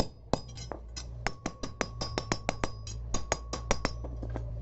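A hammer striking steel in quick succession, about five ringing clinks a second, over a low steady hum.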